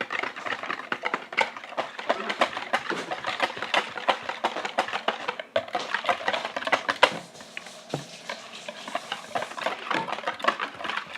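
Whisk beating a thick glue-and-water mixture in a bowl, with rapid, irregular clicking as the whisk knocks against the bowl; it eases off briefly about seven seconds in.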